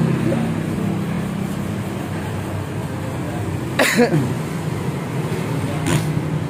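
A steady low mechanical hum, with a short sharp noise about four seconds in and another near the end.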